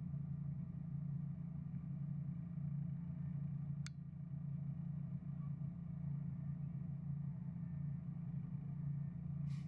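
Truck engine idling with a steady low hum. A single sharp click comes about four seconds in, and a brief hiss near the end.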